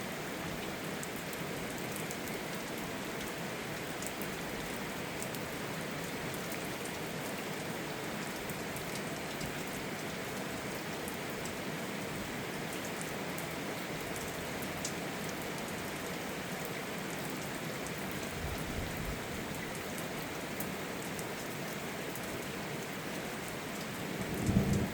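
Steady rain falling, with scattered individual drops ticking. A low rumble of thunder starts swelling near the end.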